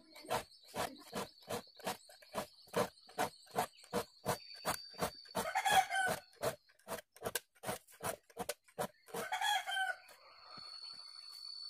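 A file rasping across the teeth of a hand saw in a steady rhythm of about two and a half strokes a second, stopping near the end. A rooster crows twice in the background, once around the middle and again near the end.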